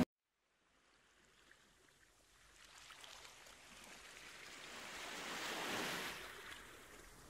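Small waves washing softly onto a sandy beach, swelling gradually to a peak near the end and then easing off. Nearly silent for the first second.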